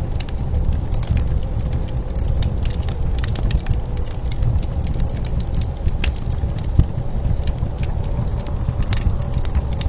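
Wood fire crackling with irregular sharp pops over a steady low rumble of blizzard wind.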